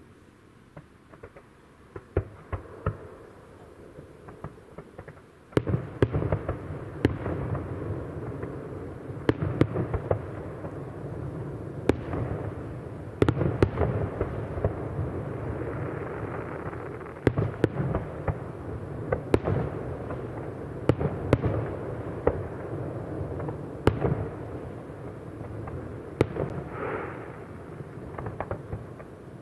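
Aerial fireworks display: shells bursting with sharp bangs and crackle. A few scattered reports for the first five seconds, then a dense barrage of bangs over a continuous rumble from about five seconds in, thinning near the end.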